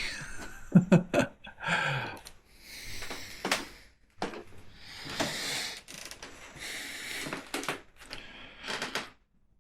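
A person breathing close to the microphone: several slow, airy breaths of about a second each, with small clicks and handling noises in between.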